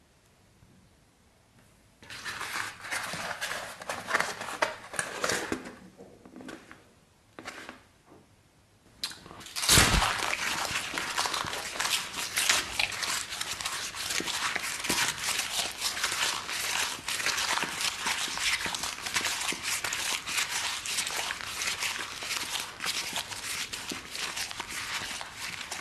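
Crunching and crackling of a cardboard pizza box and pizza being bitten and chewed: a few short bursts after a quiet start, one sharp loud crunch about ten seconds in, then dense, continuous crunching.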